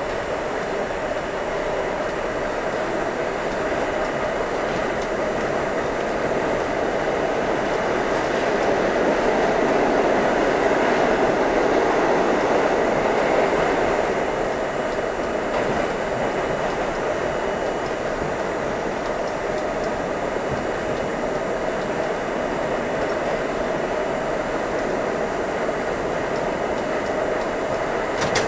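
R32 subway train running at speed through a tunnel, heard from inside the car: a steady wheel-and-rail rumble and rattle. It swells louder for several seconds and eases after about 14 seconds in, with one sharp click near the end.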